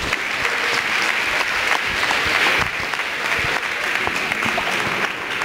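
Audience applauding steadily, many hands clapping at once, at the close of a lecture.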